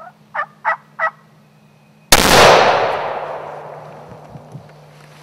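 Three quick turkey clucks, then about two seconds in a single shotgun blast that kills a gobbler, its report echoing and dying away through the woods over the next two to three seconds.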